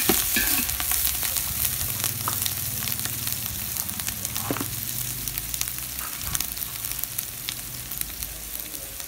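Sliced onions and green chillies sizzling in hot oil in an aluminium pot, frying down to brown, with a few scrapes of a metal spatula stirring near the start.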